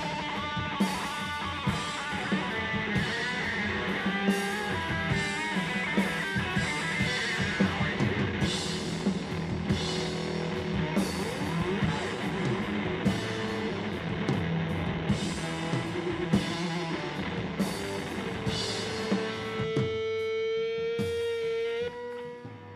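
Live rock duo of electric guitar and drum kit playing hard, with steady cymbal hits over distorted guitar. About twenty seconds in the drums stop and a single held guitar note rings on before the sound drops away.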